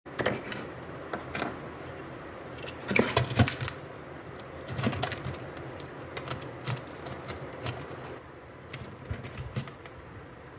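Irregular sharp clicks and metal knocks of hand work on a water pump, loudest in a cluster about three seconds in, over a low steady hum.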